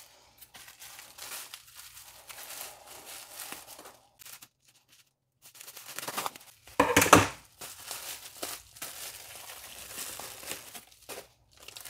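Bubble wrap crinkling and rustling as it is handled and cut open with scissors, with one short, much louder crackle about seven seconds in.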